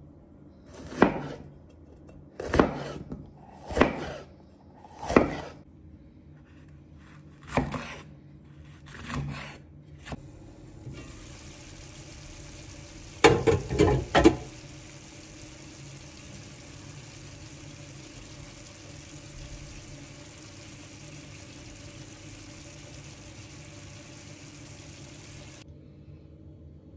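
A kitchen knife cutting through a green bell pepper on a bamboo cutting board: about six slow strokes, each a crunch and a knock on the wood. Then a pot of meat patties and potatoes in tomato sauce simmering with a steady hiss, with a quick run of knocks soon after it begins.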